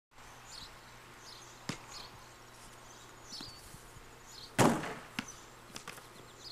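A basketball hitting the pavement: one loud thump about four and a half seconds in, then a few lighter bounces, over faint outdoor background noise.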